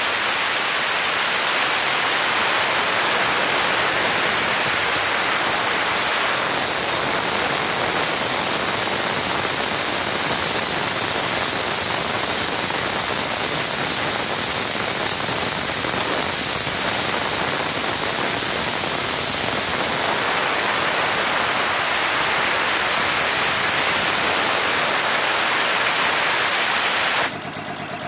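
Steady loud hiss of compressed air rushing from the air compressor. Near the end the hiss drops away and a lower, rhythmic machine sound begins.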